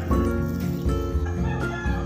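Background music: soft lo-fi track with sustained chords and a steady bass beat.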